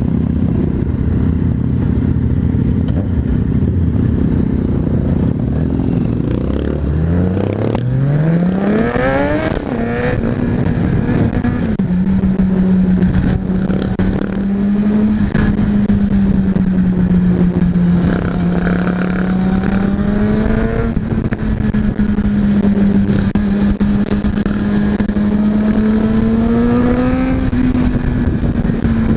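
Motorcycle engine idling, then revving up and climbing in pitch through the gears as it pulls away about seven seconds in, then running steadily at cruising speed with small rises and falls in pitch.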